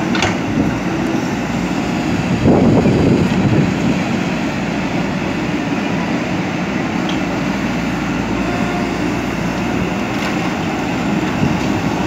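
JCB 3DX backhoe loader's diesel engine running steadily under digging load while the backhoe arm works the bucket in a drain trench. The sound swells briefly about two and a half seconds in.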